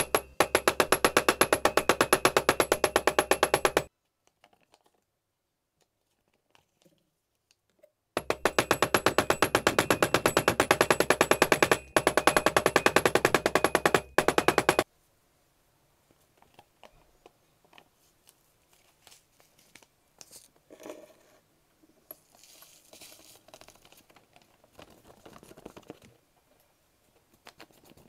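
Steel claw hammer tapping rapidly and evenly on lumps of orpiment under a sheet of paper, crushing the hard mineral into powder: two runs of quick blows a few seconds apart. Afterwards, faint scraping and paper rustling as the powder is gathered.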